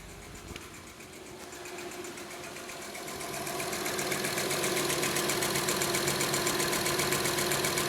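Honda Odyssey engine idling with a rapid, regular ticking, in an engine with a cylinder 2 misfire. The sound grows louder over the first few seconds, then holds steady.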